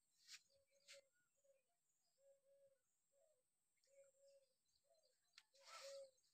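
Near silence with faint, short low cooing notes repeating over and over, typical of a dove. There are a few soft clicks, and a brief rustle shortly before the end.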